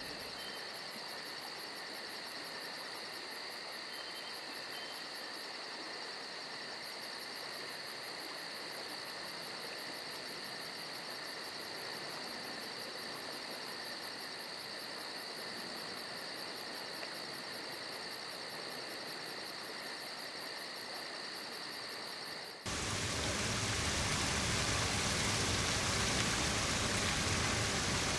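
A steady hiss with a few held high tones and a fast, even, high pulsing. About 23 seconds in this cuts off suddenly to a louder, even rushing of water running over the rocks of a shallow stream.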